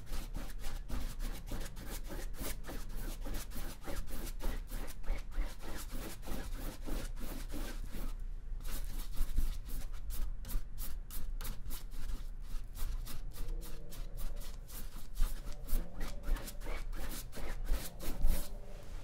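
Paintbrush stroking acrylic paint onto a canvas in quick, repeated scratchy strokes, with a brief pause about eight seconds in.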